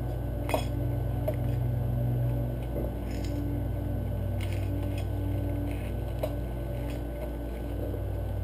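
A steady low hum, with a few light clicks and clinks from tools and small metal engine parts being handled, the sharpest about half a second in.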